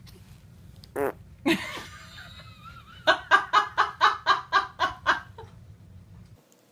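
A baby's fart, short and sudden, about a second in, with a second burst just after. Then a person laughs in a quick run of about nine bursts, which is the loudest part.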